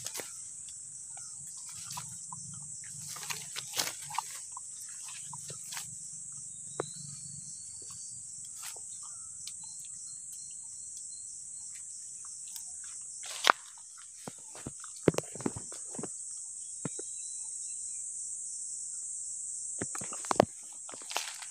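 Steady high-pitched drone of insects, crickets or cicadas. Over it come scattered rustles and sharp knocks of a landed fish thrashing in the grass, the loudest about halfway through and again near the end.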